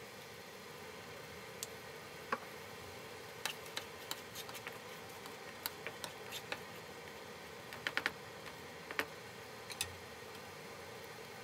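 Garlic sauce simmering in a pan: a steady faint hiss with irregular sharp pops and crackles as bubbles burst, a few close together about eight and nine seconds in.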